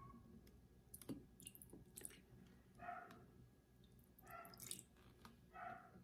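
Faint pouring of white vinegar from a plastic bottle into small glass cups: a few short liquid gurgles and light clicks of bottle against glass.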